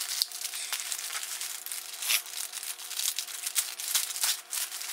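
Plastic poly mailer being pulled apart and the plastic wrapping inside handled, giving a continuous run of crinkling and crackling with a few sharper tearing rips.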